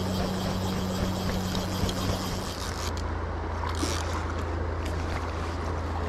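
River current rushing steadily, with a steady low hum underneath that drops slightly in pitch about two and a half seconds in.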